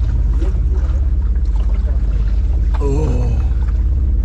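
Fishing boat's engine running steadily under way, with a low, evenly pulsing drone and the wash of water and wind over it. A short, wavering voice-like cry cuts in about three seconds in.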